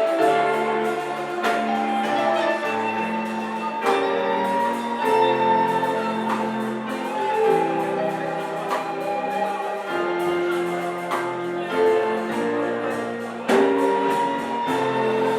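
Music with held, shifting chords over a steady ticking beat of percussion.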